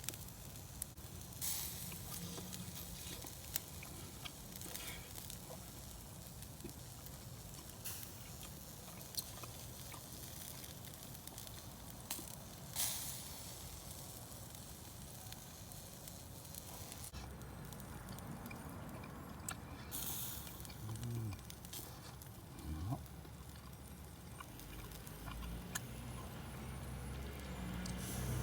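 Wood campfire burning with a soft crackle and scattered sharp pops.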